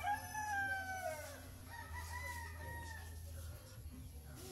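A rooster crowing: one long call that falls in pitch as it ends about a second and a half in, then a second, fainter and shorter call.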